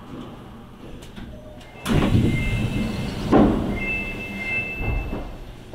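Subway train's sliding doors opening at a station: a sudden rush of air and door movement about two seconds in, with a two-note electronic chime sounding twice.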